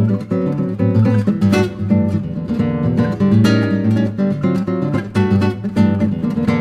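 Background music played on acoustic guitar, with a steady run of strummed and picked notes.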